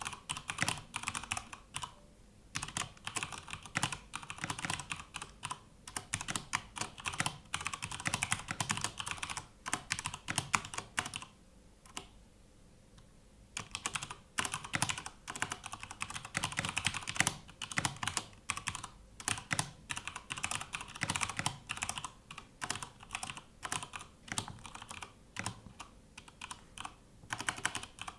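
Cooler Master MK750 mechanical keyboard being typed on in fast runs of key clicks. There is a brief break about two seconds in and a longer pause of about two seconds around the middle.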